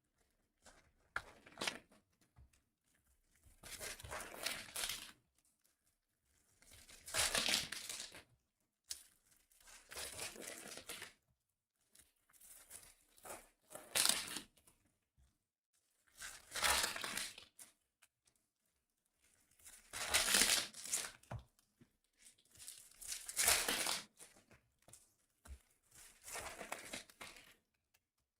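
Baseball card pack wrappers being torn open and crinkled, one after another, about nine times, roughly every three seconds.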